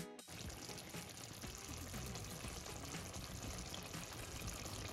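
Chicken curry simmering in an uncovered stainless steel pan, its gravy bubbling and crackling steadily.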